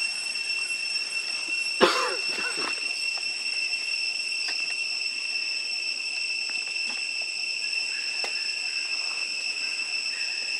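Steady high-pitched drone of insects in the forest, with a sharp snap and a brief squeaky call about two seconds in and a few faint clicks afterwards.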